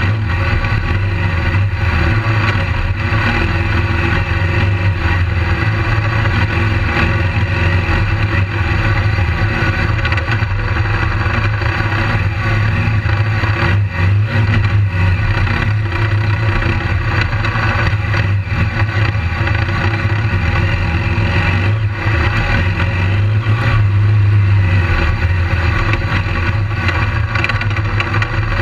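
BMW GS motorcycle engine running steadily under throttle as the bike rides a dirt track, heard close up from on the bike as a strong low drone. It swells slightly a few seconds before the end.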